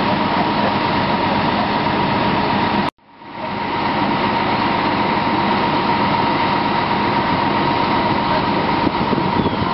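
Fire apparatus engines running steadily at a fireground, a constant mid-pitched whine over a low engine hum. The sound drops out abruptly for a moment about three seconds in, then returns unchanged.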